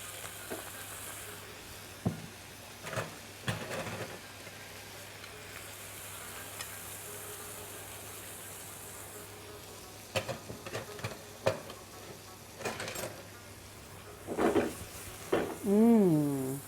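Sautéed vegetables sizzling in a frying pan as tomato and cream sauces are added and stirred in, with scattered clinks and scrapes of a spoon against the pan. A short stretch of voice comes near the end.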